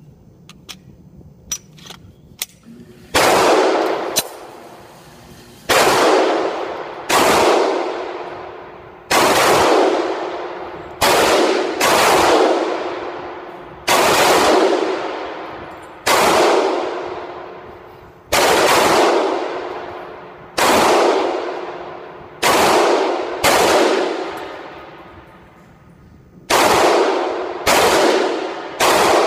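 A few light clicks, then a Glock 19 9 mm pistol fired in slow, deliberate single shots, about fifteen in all, one every one to two and a half seconds. Each report rings on in the booth with a long echoing tail.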